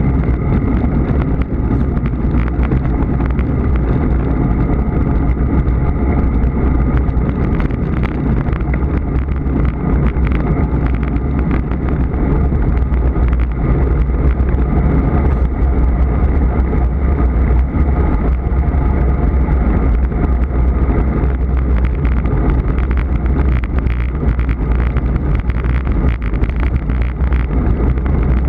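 Steady wind rush and road rumble from riding at speed on a road bicycle, with wind buffeting the microphone.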